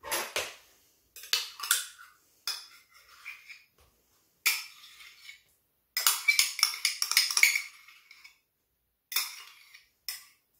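Metal spoon scraping and tapping thick yogurt out of a measuring cup into a mixing bowl, in several short bursts of clinks and scrapes, with a quick run of taps about six seconds in.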